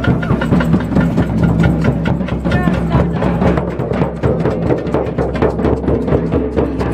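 Drums, a bass drum among them, beating a quick, steady rhythm as a street protest marches along.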